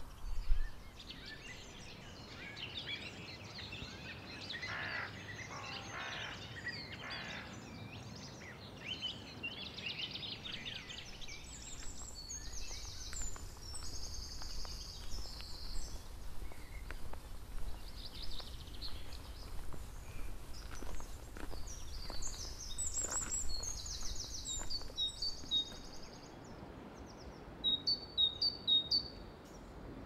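Several woodland songbirds singing. Warbling trilled phrases fill the first ten seconds or so, then higher, thinner song phrases come a few times, and short high notes sound near the end, over a faint low rumble.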